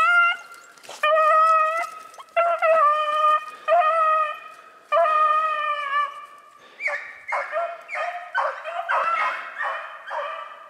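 Beagles baying on a snowshoe hare's track: a string of long, drawn-out howling bawls, one after another. In the second half they turn choppier and overlap.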